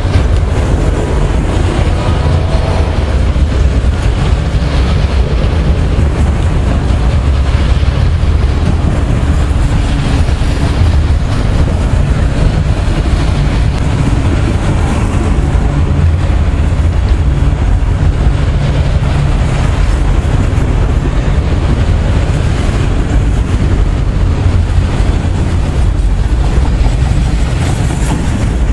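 CSX freight train of autorack cars rolling past: a steady, loud rumble of steel wheels on the rails that runs on without a break.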